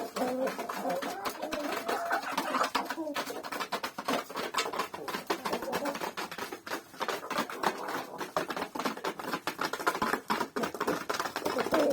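Hens making low clucking calls while pecking at wheat, with many quick, irregular taps of beaks striking the grain.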